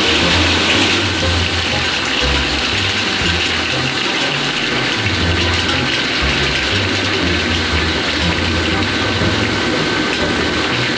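Steady machine noise from bottle-cap sorting and feeding equipment: a hissing din with a faint steady high tone and a low hum that shifts up and down.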